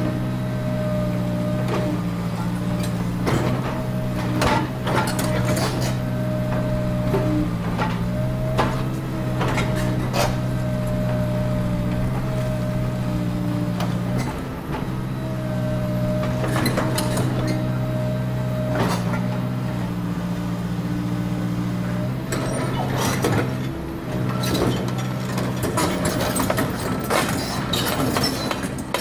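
Diesel engines of Komatsu PC200 hydraulic excavators running steadily under digging load, with repeated sharp knocks and clanks from the buckets working earth and rock. The engine drone dips briefly twice, near the middle and about two-thirds through.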